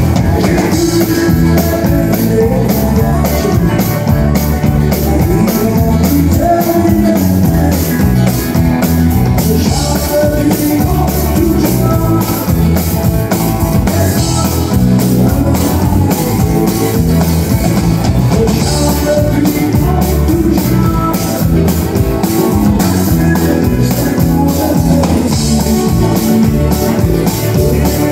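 Live country band playing a song: a male voice singing over a strummed acoustic guitar, backed by drums.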